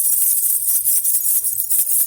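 Baby rattle (jhunjhuna) with small jingle bells, shaken steadily: a dense, bright, rapid jingling and rattling.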